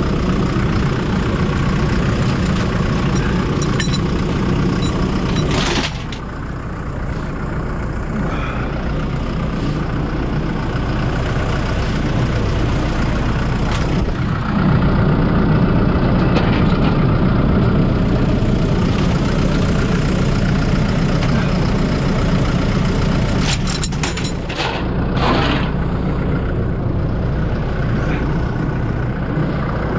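Heavy diesel engine running steadily with a deep rumble. It drops in level about six seconds in and picks up again around fifteen seconds, with a few short sharp sounds near the end.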